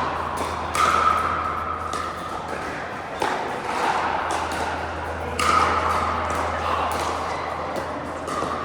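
Indoor pickleball play: several sharp pops of paddles striking the plastic ball, echoing in a large hall, with short squeaky tones and a steady low hum underneath.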